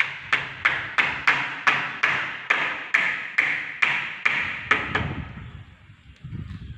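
Hammer tapping repeatedly at the side of a uPVC door frame during installation, about three blows a second, each with a short ringing tail. The blows stop about five seconds in.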